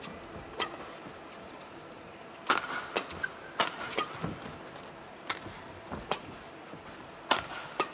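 Badminton doubles rally: sharp cracks of rackets striking the shuttlecock, a little under one a second and sometimes two in quick succession. Short squeaks of shoes on the court come in between.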